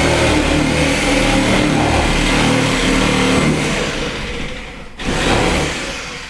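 A loud motor running steadily, tailing off after about four seconds, with a short surge about five seconds in before it fades away.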